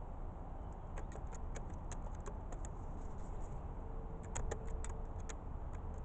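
Scattered sharp ticks and clicks, thickest about four to five seconds in, over a steady low rumble.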